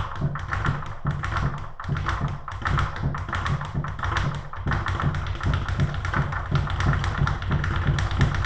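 Speed bag being punched in a fast, steady rhythm, the bag rattling against the rebound board above it.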